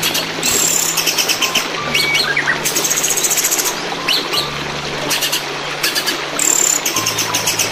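Poksay hongkong (a laughingthrush) singing a masteran song of rapid, high chattering trills and short whistled glides, with the mimicked phrases of other songbirds woven in. The song runs over a steady flowing-water background.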